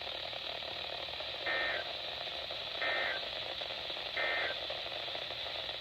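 Emergency Alert System end-of-message (EOM) signal: three short bursts of buzzy two-tone digital data, about 1.4 seconds apart, over steady radio hiss. They mark the end of the alert broadcast.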